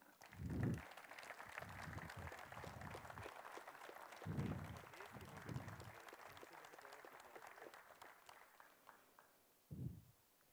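Audience applauding, heard faintly, dying away about nine seconds in, with a few low murmured voices underneath.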